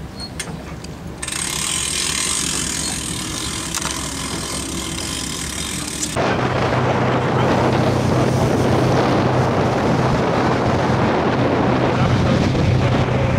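Motorboat under way: its engine hums steadily under a loud rush of wind and water, cutting in abruptly about six seconds in. Before that there is a steady hiss.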